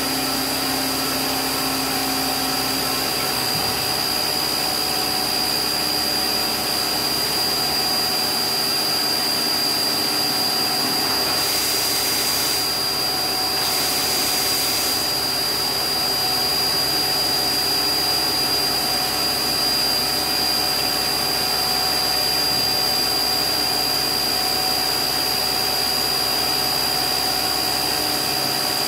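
LMW JV Kraft 5-axis vertical machining centre milling, its spindle giving a steady high whine over continuous cutting and machine noise. About halfway through, two short bursts of hissing coolant spray sound.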